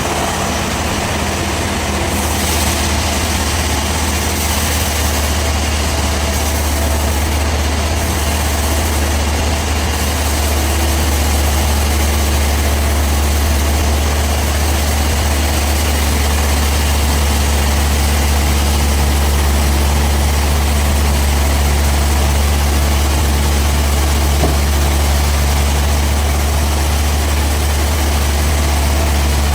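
Band sawmill machinery running steadily and loudly, with a strong low hum under a broad noise.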